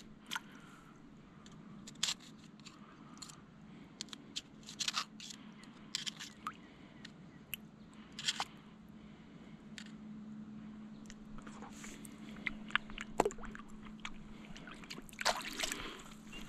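Knife blade scraping and clicking against a wild oyster shell as the oyster is cut free and shucked by hand, in scattered short scrapes and clicks, with a denser flurry near the end. A faint steady low hum runs underneath.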